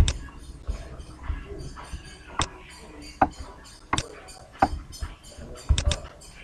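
Computer mouse buttons clicking: single sharp clicks every second or so, then a quick double click near the end.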